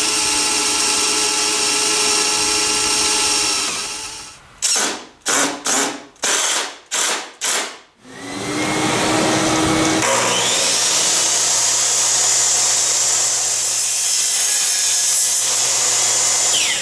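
A drill boring through aluminium T-track runs steadily for about four seconds. Then come about half a dozen short bursts of a cordless impact driver driving screws into the plywood fence. After that a power tool spins up and runs steadily for about eight seconds before winding down near the end.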